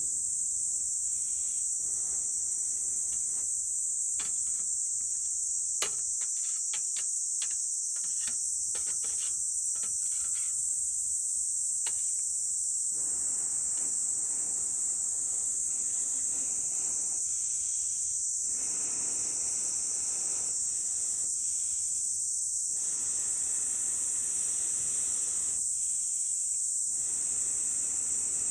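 Steady high-pitched drone of a summer insect chorus. Scattered faint crackles come from the burning firewood in the first half.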